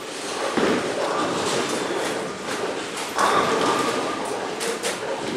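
Tenpin bowling ball rolling down the lane, then crashing into the pins a little after three seconds in, over the steady din of a bowling alley.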